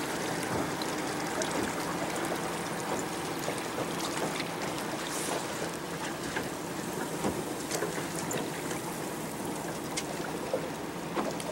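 Choppy water lapping and slapping against the hull of a small boat: a steady wash with scattered small splashes.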